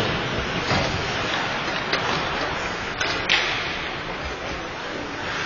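Ice hockey play on a rink: skate blades scraping the ice as a steady hiss, with a few sharp clacks of sticks and puck.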